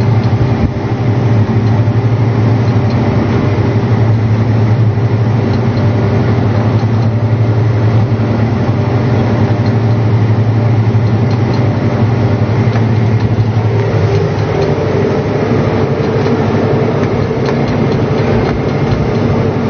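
John Deere tractor's diesel engine running steadily under load, heard from inside the cab as a loud, even drone with a deep hum. About two-thirds of the way through, the deep hum fades and the drone settles onto a slightly higher tone.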